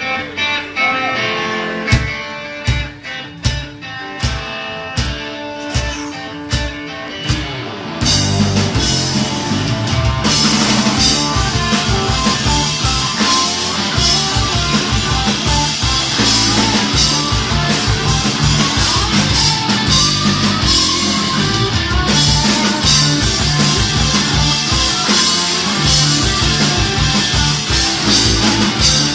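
Live rock band playing an instrumental introduction: a sparse opening of held notes punctuated by regular drum hits, with the full band coming in about eight seconds in.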